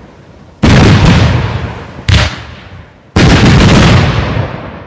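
Fireworks display: three loud bangs of shells bursting in the air. They come under a second in, about two seconds in and just past three seconds in. The first and last die away slowly over more than a second.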